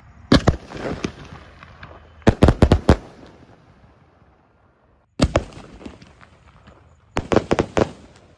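Ajanta 'Hulk' 8-step skyshot shells bursting in the air with sharp bangs. Two bangs come near the start and a quick cluster of about five follows a little over two seconds in. A single bang comes past the middle and another quick cluster of bangs comes near the end.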